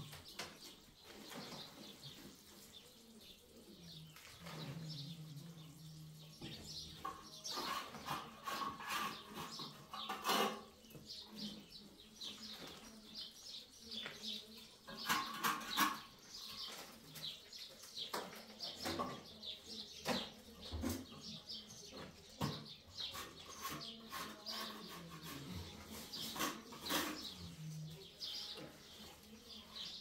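Dry plaster powder being scooped and rustled by hand from a sack into metal basins: scattered soft scrapes, rustles and clicks, the loudest about ten seconds in and again around fifteen seconds in.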